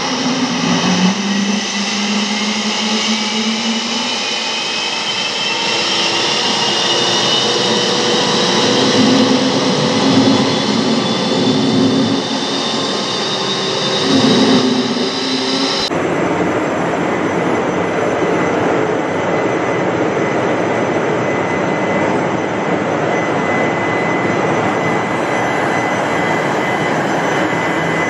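A GE LM1600 gas turbine, freshly rebuilt after heavy HP compressor damage, running on its test stand. At first several whining tones climb in pitch as it speeds up, over an uneven low rumble. A cut about halfway through leads to a steady rush with a constant high whine; the engine is running normally.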